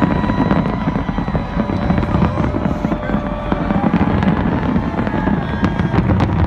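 Fireworks show going off, with a rapid run of sharp pops and crackles over a dense low rumble.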